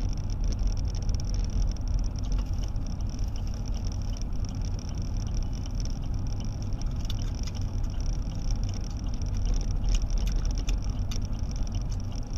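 Steady low rumble of road and engine noise inside a moving car's cabin, with a few faint sharp clicks in the second half.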